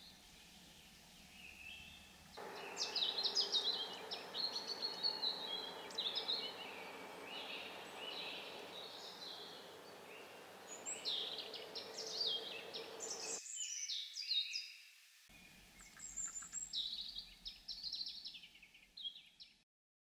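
Small birds chirping and singing in many short, high notes, starting a couple of seconds in. For the first part a steady rushing noise runs underneath, and it stops abruptly about two-thirds of the way through. The sound cuts off just before the end.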